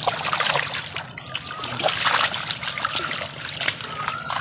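Live fish splashing in a net hauled up in shallow water, with water trickling and dripping through the mesh: a dense crackle of many small splashes.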